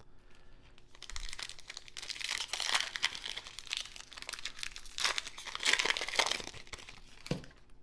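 The foil wrapper of a Panini Prizm trading-card pack being torn open and crumpled by hand. The crackling comes in two louder spells, one about two to three seconds in and one around five to six seconds.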